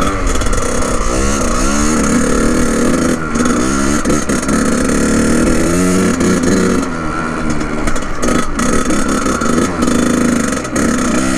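Kawasaki KX100 single-cylinder two-stroke dirt bike engine revving as it is ridden, its pitch rising and falling again and again with the throttle.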